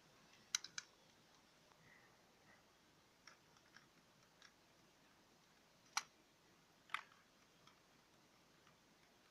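Faint, irregular small clicks from fingers handling the hands on the hub of a vinyl record clock. The sharpest come as a pair just after the start and then singly about six and seven seconds in.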